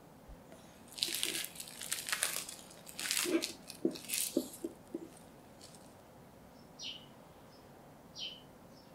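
Plastic cling wrap crinkling loudly in repeated handfuls as it is handled around a glass ramekin, with a few light knocks. Near the end come two short soft squishes as whipped cream is spooned onto the pudding.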